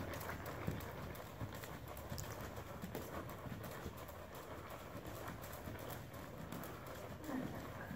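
Hoofbeats of a ridden horse trotting on the sand footing of an indoor arena: a continuing run of short, dull strikes.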